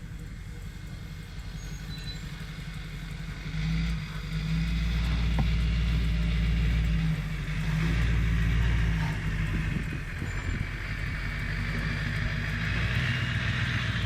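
Truck engine running, getting louder about four seconds in and again around eight seconds as it revs, then settling back a little.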